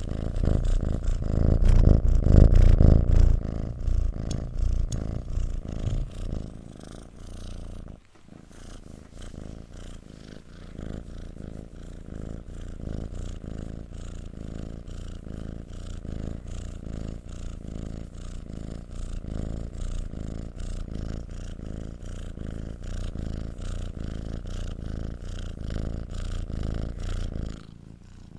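Domestic cat purring, a fast, even rumbling pulse. It is loudest in the first few seconds; after a brief break about eight seconds in, a steadier, quieter purr goes on until it cuts off abruptly near the end.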